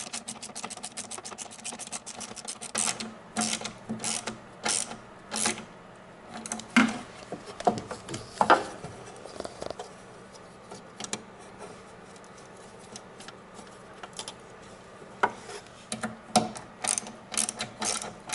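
Ratchet wrench clicking as footplate bolts are driven and tightened. It is fast and regular at first, then slower strokes with a few louder knocks in the middle. The quick clicking returns near the end.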